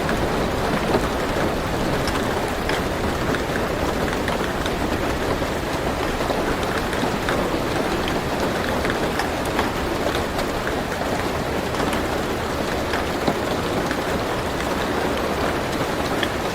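Steady rain pattering on a car roof, heard from inside the car, with many separate drops ticking sharply through the constant hiss.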